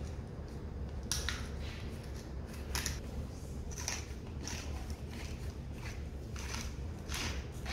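Hand pepper mill grinding peppercorns: short gritty rasping bursts, often in pairs, as the top is twisted back and forth, with pauses of about a second between them.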